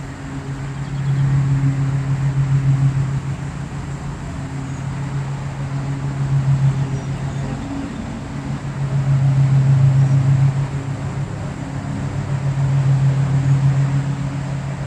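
An engine running with a steady low drone that swells louder and eases back about four times.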